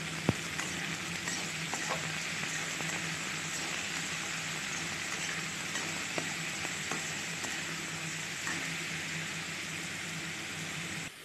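Potato pieces and tender drumstick pods frying in oil in a metal karahi: a steady sizzle, with the metal spatula scraping and clicking against the pan now and then as they are stirred. The sizzle drops off suddenly near the end.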